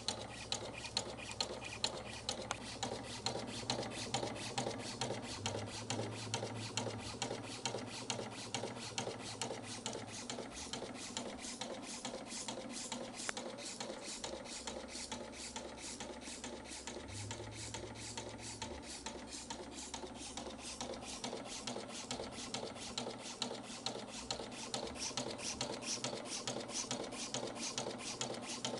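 Cutex TBC-50S cold-knife label cutting machine running automatically, its blade chopping label stock in a steady, fast, even rhythm of sharp clicks over a motor hum.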